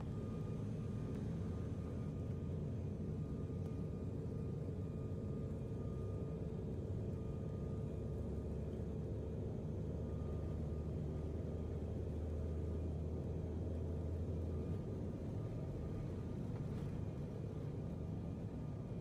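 Steady low rumble of an airliner cabin as the plane taxis, with the hum of the engines and rolling wheels heard from inside. A faint steady whine sits over the rumble, and the low hum swells for a few seconds past the middle.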